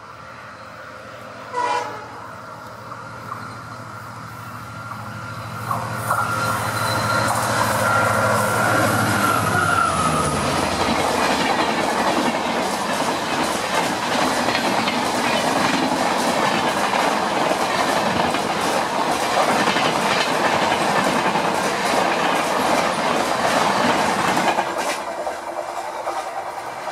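Indian Railways express approaching behind a WDP4 diesel locomotive, its engine a steady drone, with a short horn blast about two seconds in and a held horn note a few seconds later. Then the loud rush and wheel clatter of LHB coaches passing close at speed, easing off near the end.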